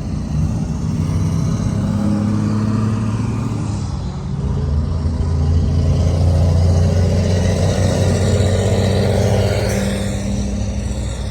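A vehicle's engine running with a steady low drone, heard close up, growing louder about halfway through as if pulling away a little faster.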